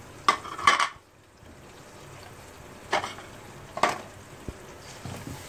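Slotted spatula knocking against a cooking pot as yogurt is scraped in and stirred into the masala. There are a few sharp clacks within the first second, then two more about three and four seconds in.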